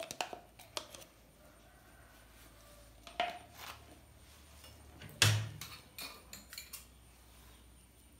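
Metal spoon clinking and knocking against dishes during cooking prep: a scattered series of light clicks, with one louder knock about five seconds in.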